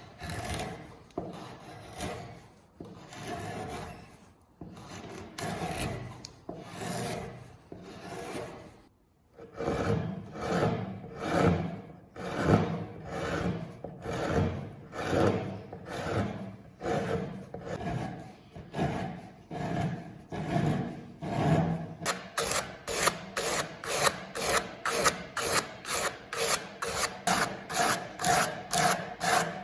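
Repeated back-and-forth strokes of hand abrading, an abrasive tool scraping across a part being restored. The strokes are uneven at first, break off briefly, then settle to about one a second and quicken to about three a second near the end.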